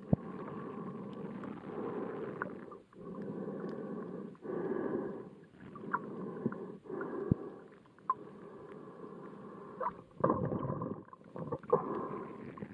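Muffled underwater water noise picked up by a submerged camera: rough surges of sloshing water, broken by short lulls, with scattered sharp clicks and taps. The surges are loudest around ten seconds in.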